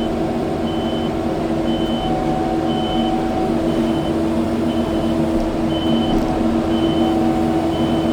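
Kubota skid steer's diesel engine running steadily while its backup alarm beeps about once a second, the sign that the machine is reversing.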